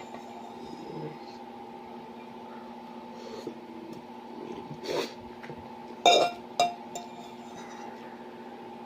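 Utensil clinking against a plate or bowl a few times while eating: one strike about five seconds in and two more about a second later, over a steady electrical hum.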